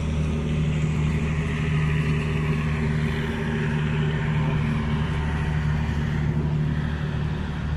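Indonesian KAI passenger train's coaches rolling past as it departs: wheels running over the rails under a steady low diesel drone. The wheel noise swells in the middle and eases near the end as the last car passes.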